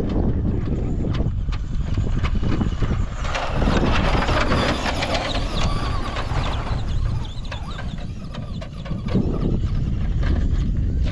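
Electric RC truck running over dry, rutted dirt: a steady rumble with many short clicks and knocks. A louder, denser stretch of crackling grit runs from about three to seven seconds in.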